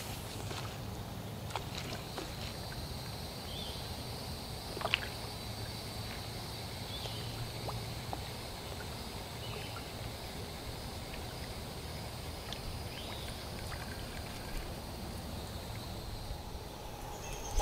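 Quiet outdoor ambience: a steady low rumble with a faint, steady high-pitched buzz, a few short chirps and an occasional sharp click.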